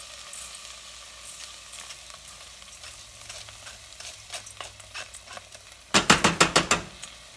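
Drained rice sizzling in hot olive oil in a stainless steel pot as a wooden spoon scrapes it out of a fine mesh strainer, with small scraping clicks. About six seconds in comes a quick run of about eight sharp knocks as the strainer is banged against the pot's rim to shake out the last of the rice.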